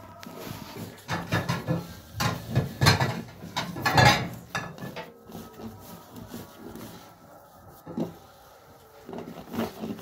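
Hands kneading a çiğ köfte mixture of bulgur and ground beef in a large metal tray: irregular squelching, pressing and scraping strokes against the metal, loudest in the first half, with a single knock about eight seconds in.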